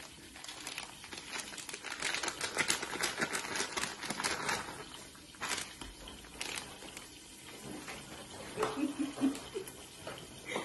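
Plastic packaging of pre-cooked udon noodles crinkling and crackling as the packets are handled and squeezed out over the pot. The crackling is thickest in the middle, with scattered clicks either side.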